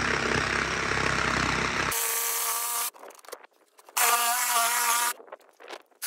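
Electric jigsaw cutting through a wooden board for about two seconds, then running with a steady whine. It stops briefly and runs again with the same whine for about a second near the end.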